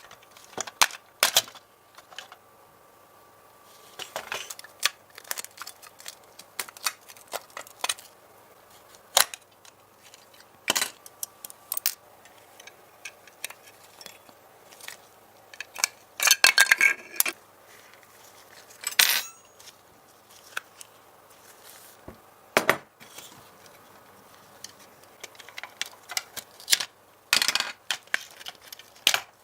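Irregular clinks, taps and scrapes of small metal parts and hand tools being handled while working on a diecast model car, with a few short busy clusters of clicking.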